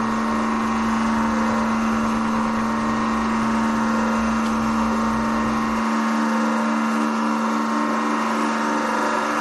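Hydraulic press motor and pump running with a steady hum under load while the ram slowly compresses a soccer ball. A low rumble underneath drops away about six seconds in.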